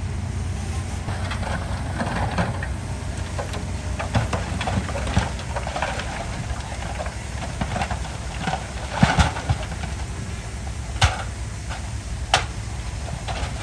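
Komatsu bulldozer's diesel engine running steadily, with irregular rattles and clanks over it and a few sharp knocks, the loudest about nine seconds in and two more near eleven and twelve seconds.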